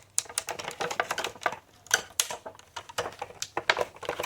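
Irregular clicking, tapping and crinkling of a boxed doll and its plastic packaging being handled, several sharp clicks a second.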